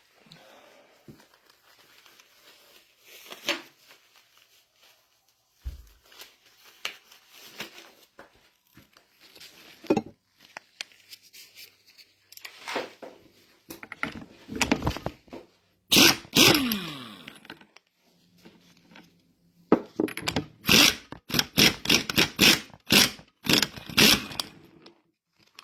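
Hand tools working on the steel hydraulic valve body of a mini excavator as it is unbolted with Allen keys: scattered clicks, scrapes and knocks of metal on metal. About two-thirds through comes a loud clank that rings on with a falling tone, and near the end a quick run of sharp clicks.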